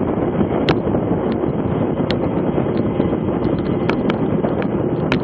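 Steady wind rush over a cyclist's action-camera microphone while riding at racing speed, with a few sharp, brief clicks scattered through.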